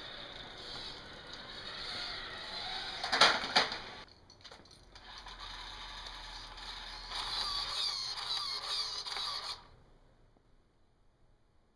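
Radio-controlled toy buggy's electric motor and gears whirring as it drives over concrete, with two sharp knocks a little after three seconds. The sound cuts off suddenly near the end.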